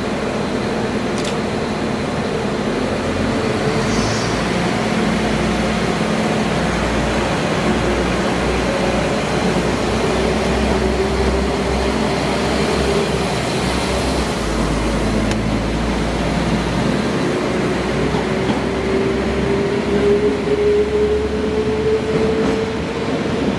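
Transport for Wales Class 197 diesel multiple unit running through the platform: a steady diesel engine drone with a low rumble. A whine rises slowly in pitch over the last several seconds as the unit accelerates away.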